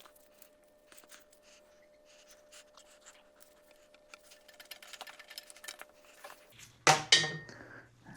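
Faint scrapes and small clicks of two rubber hoses being worked off their fittings on a Ford 300 inline six engine, with a louder sudden sound about seven seconds in.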